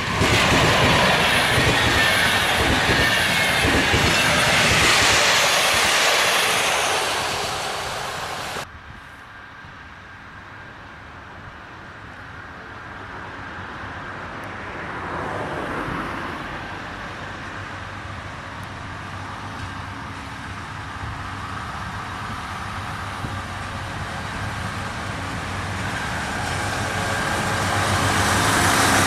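An EP09 electric locomotive and its passenger coaches pass close at speed, wheels clattering over the rail joints, until a cut about nine seconds in. Then an SM42 diesel shunter approaches slowly with loaded flat wagons, its diesel engine hum growing steadily louder as it draws near.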